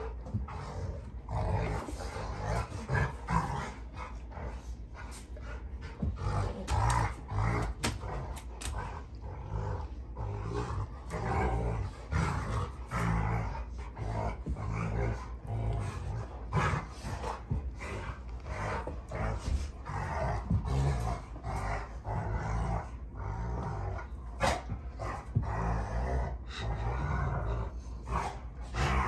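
Rottweilers play-fighting: repeated growling, with many short knocks and scuffles from their bodies and jaws throughout.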